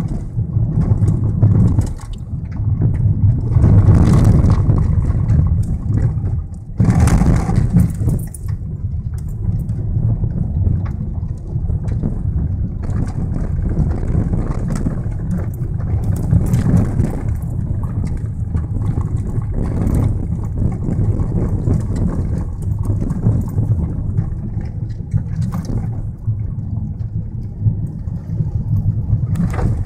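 Car driving on a gravel and dirt track, heard from inside the cabin: a steady low rumble of engine and tyres, with gravel crunching and louder jolts around four and seven seconds in.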